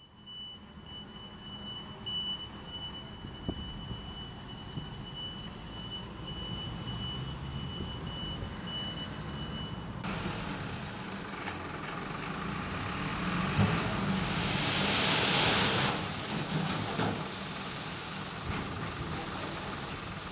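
A dump truck's engine runs steadily while asphalt is unloaded. A rushing, sliding noise swells about three-quarters of the way through as the asphalt slides off the raised tipper bed, with shovels knocking and scraping on the road. A thin, steady high tone sounds through the first half and cuts off suddenly.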